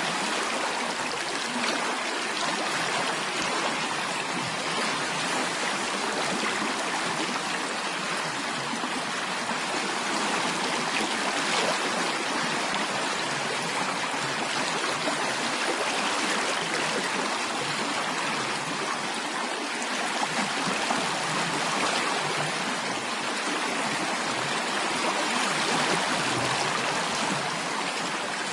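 Water flowing in a stream, steady and unbroken.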